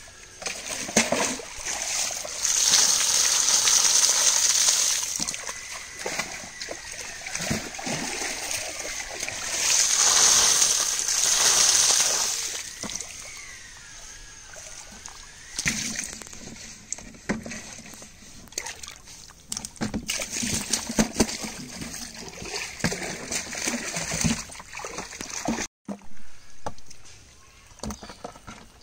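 Water splashing and sloshing onto wet mud from a bucket, in two long rushing pours, followed by many short splashes and slaps as live eels thrash in the shallow muddy water.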